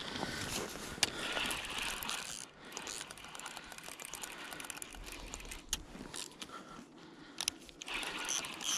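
Fishing reel being cranked to play a hooked carp, its gears whirring and ratcheting unevenly, with a few sharp clicks.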